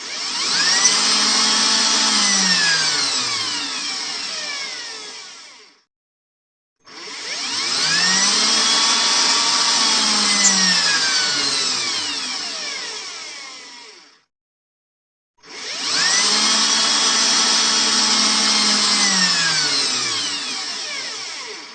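Electric drill motor run three times, each time spinning up with a rising whine, holding, then winding down, with about a second of silence between runs.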